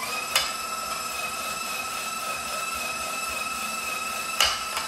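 KitchenAid stand mixer's motor running steadily with a whine, driving the rotating shredder attachment as carrots are pushed through. Its pitch steps up right at the start, and two sharp knocks come about a third of a second in and near the end.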